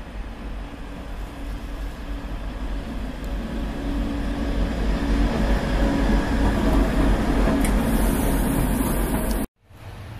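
Voith Maxima diesel-hydraulic locomotive approaching and passing close by, its engine drone and running noise growing steadily louder to a peak about six to nine seconds in. The sound cuts off abruptly near the end, followed by quieter station ambience.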